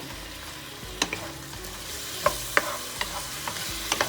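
Potatoes frying in oil in a pan, a steady sizzle that grows a little louder about halfway through, with several short sharp clinks of a utensil against the pan.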